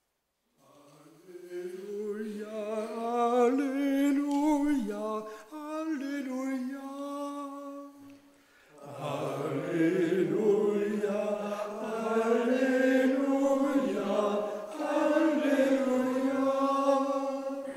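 Men's voices singing a liturgical chant, the Gospel acclamation of a monastic choir. One voice sings a melodic phrase first, and about nine seconds in more men's voices join in unison.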